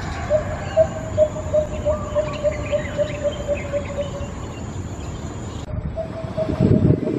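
Lesser coucal calling: a run of about a dozen deep, hollow hoots that come a little faster as the series goes on and fade away. After a short break another run begins. Faint chirps of small birds sit behind it, and near the end there is a brief low rumbling noise.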